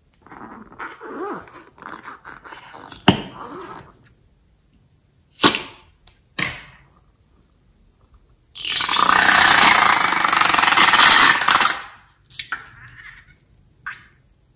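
Rubber balloons squeaking and crackling as they are handled, with three sharp clicks. Then about three seconds of loud hissing spray as liquid is squeezed out of a balloon's neck into a bowl of slime.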